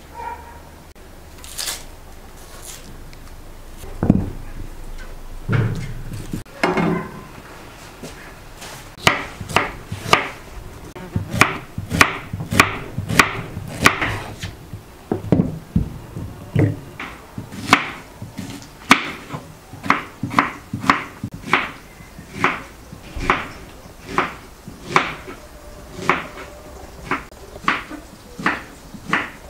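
Kitchen knife slicing onions on a wooden cutting board: a steady series of sharp knocks, about two a second, starting roughly a third of the way in. Before that come a few scattered duller thumps.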